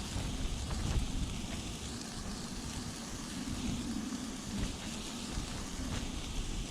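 Wind gusting against the tent and microphone, a low uneven rumble, with faint scattered ticks of light rain.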